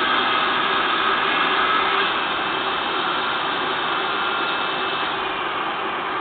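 A power tool motor running steadily, giving a loud, even hiss with faint steady whine tones, slightly louder in the first two seconds.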